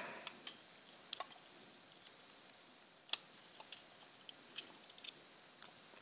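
Faint, irregular clicks and taps of plastic parts as a small DC motor is worked loose and pulled out of an aquarium feeder's plastic gearbox housing, the sharpest click about three seconds in.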